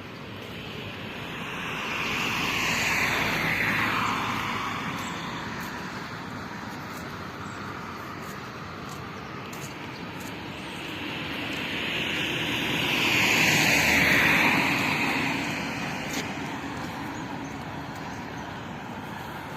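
Two road vehicles pass by one after the other, about ten seconds apart; each swells up, drops in pitch as it goes past, and fades away.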